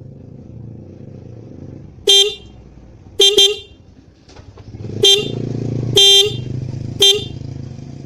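Motorcycle electric horn giving six short, irregular toots, one of them longer, set off by fingers touching a bare ring terminal wired to a transistor-and-relay touch circuit. A steady low hum runs underneath.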